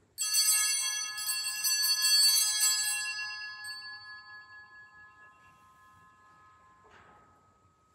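Altar bells rung at the elevation of the chalice, marking the consecration. A bright cluster of bell tones is shaken for about three seconds, then rings on and fades away.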